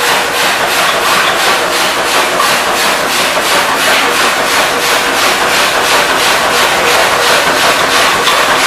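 Workshop machine running with a loud, even rasping rhythm of roughly five strokes a second.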